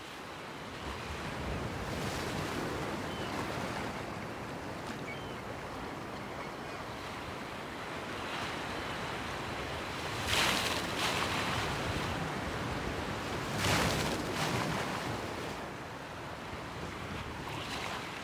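Ocean waves washing in, a steady rush that swells twice, about ten and fourteen seconds in.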